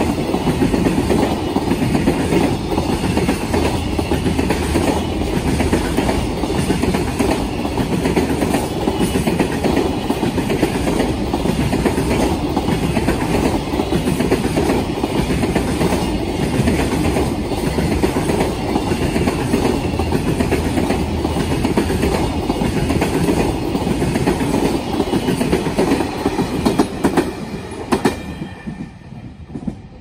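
Container freight train wagons rolling past, with a steady rumble and evenly repeating clickety-clack as the wheels cross rail joints and turnouts. The sound drops away near the end as the last wagon passes.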